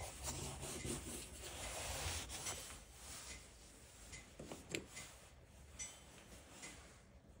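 A crayon scribbling and rubbing on sketchbook paper in quick scratchy strokes, strongest in the first couple of seconds and then fainter and more scattered, with one sharp tap a little past the middle.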